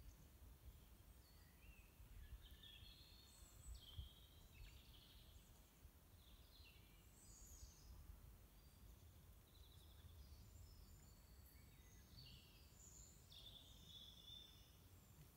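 Faint birdsong: several small birds chirping and trilling on and off over a low, steady outdoor rumble, with a soft low bump about four seconds in.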